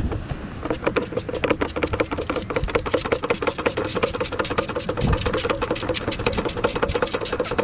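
Metal beach sand scoop being shaken to sift out sand, with shells and grit rattling against the basket in a fast run of clicks and a steady tone underneath.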